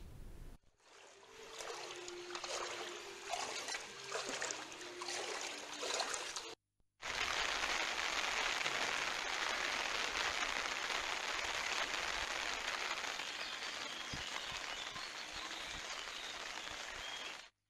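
Floodwater: a few seconds of uneven splashing and trickling, then, after a brief break, a steady rush of flowing water.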